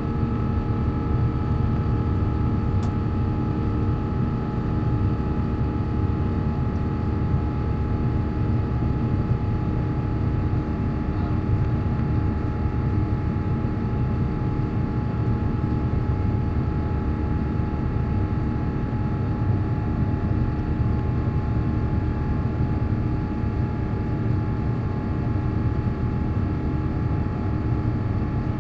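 Cabin noise of an Airbus A350-1000 under power: a steady low rumble of engine and airflow with several constant whining tones from its Rolls-Royce Trent XWB engines, unchanging throughout.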